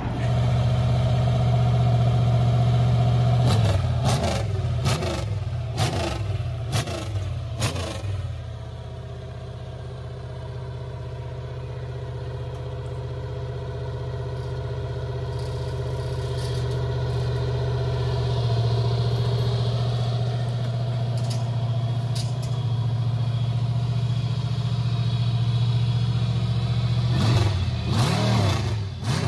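Small-block Chevy 350 V8 in a riding lawn mower running through open stack exhausts, revved in short bursts around four to eight seconds in, then running steadily while the mower is driven, with more revving near the end.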